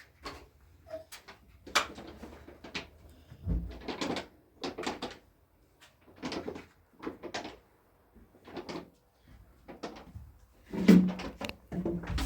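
A series of irregular knocks and clatters, a dozen or so short hits spread unevenly, the loudest about eleven seconds in.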